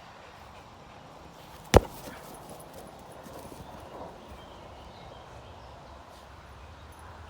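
A ball being kicked: one sharp smack about two seconds in, then only faint scuffling.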